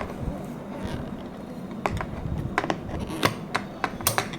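Irregular small clicks and taps of sewing machine parts being handled by hand around the bobbin, a cluster of sharp ticks in the second half.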